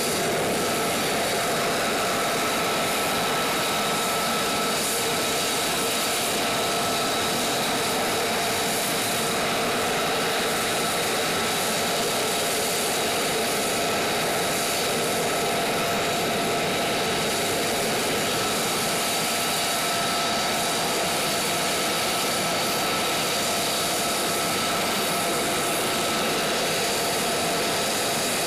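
F-35A Lightning II's F135 turbofan running at ground idle: a steady jet rush with constant high whines over it.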